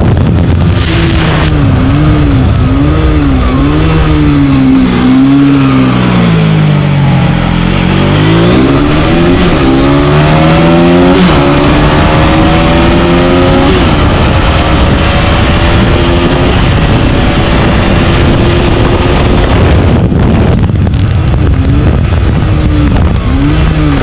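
Aprilia RS4 125's single-cylinder four-stroke engine ridden hard: the revs rise and fall repeatedly for the first few seconds, then climb steeply with a gear change about eleven seconds in and hold high and steady, before dropping briefly and wavering again near the end.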